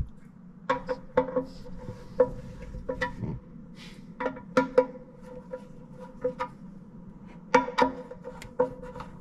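Music of sparse, short plucked-string notes at an unhurried, uneven pace.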